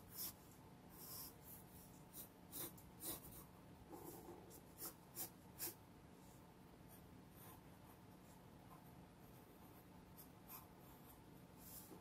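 Pencil sketching on paper: faint, short scratching strokes, busiest in the first half and sparser after.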